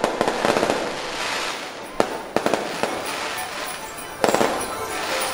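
Aerial fireworks going off: a run of sharp bangs over continuous crackling, with the loudest reports about two seconds in and again near four seconds.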